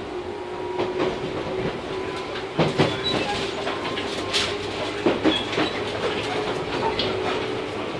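Tobu 8000 series electric train running at speed, heard from inside the car: a steady hum with a held tone, and wheels clacking over rail joints several times at uneven intervals.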